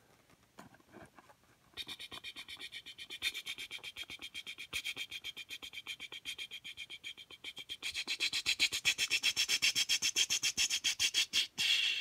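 A cardboard presentation box's inner tray sliding out of its tight sleeve, rubbing in a fast, even chatter of about seven or eight pulses a second. It starts about two seconds in and gets louder from about eight seconds in.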